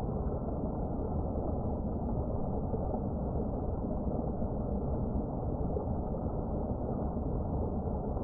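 Steady low rumbling outdoor noise with no distinct events, dull and muffled because the trail camera's microphone picks up nothing in the upper range.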